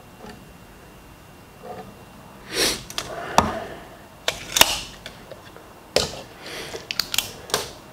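Tools and steel pieces being handled on a steel workbench: a handful of sharp clicks and knocks with short scrapes between them, starting a couple of seconds in.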